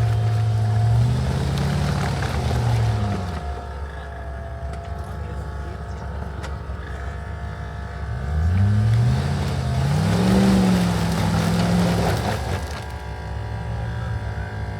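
Off-road vehicle's engine revving up and falling back, once about a second in and again more strongly around nine to eleven seconds, running low and steady in between.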